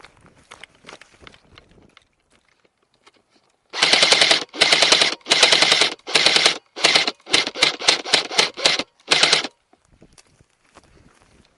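DBoy SCAR-L electric airsoft gun (AEG) firing full-auto: about ten bursts over some six seconds, starting about four seconds in, the first four about half a second each and the rest shorter and quicker. Loud and close, with the motor and gearbox clatter of each burst.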